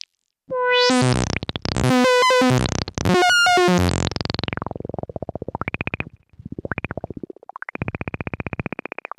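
Dave Smith Instruments Evolver synthesizer played from a NuEVI breath controller: three loud pitched notes, then a quieter fast-pulsing tone that swells brighter and darker several times.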